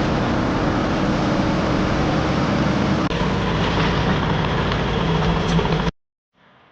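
Heavy machine's engine running loud under a dense hiss, cutting off abruptly near the end.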